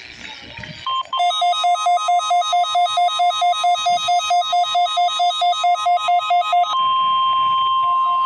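NOAA Weather Radio's 1050 Hz warning alarm tone, sent as a weekly test, with a weather-radio receiver's alert beeping rapidly over it, about four beeps a second. Near the end the beeping stops and the steady alarm tone carries on alone.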